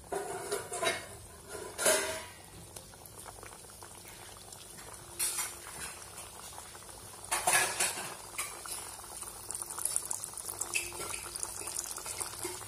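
Mathri deep-frying in hot oil on a medium-low flame, giving a steady bubbling sizzle. Several short metallic clatters, loudest about two seconds in and again about seven and a half seconds in, sound like a metal utensil knocking against the frying pan.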